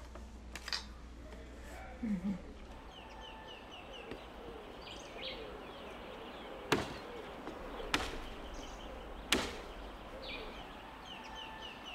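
Birds chirping in quick runs of short falling notes, with three sharp knocks about a second and a quarter apart in the middle, over a steady low background.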